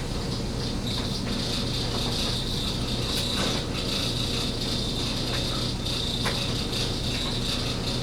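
Kitchen knife edge being drawn across a wet fine-grit water stone in stropping strokes, giving soft scattered scrapes and clicks. A steady high whine and a low hum sound behind them.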